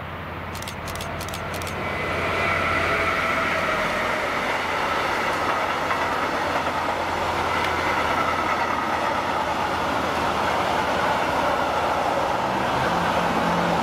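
Electric freight train rolling past: the locomotive approaches, getting louder over the first couple of seconds, then a long string of intermodal wagons carrying semitrailers runs by with a steady rumble of wheels on rail and a faint high whine. A few sharp clicks sound about a second in.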